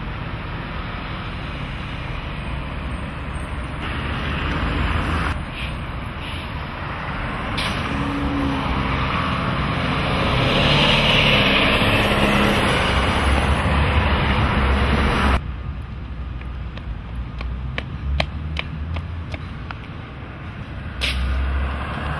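Street traffic: motor vehicles running and passing, loudest around the middle. About two-thirds of the way through it cuts abruptly to a quieter background with scattered light clicks.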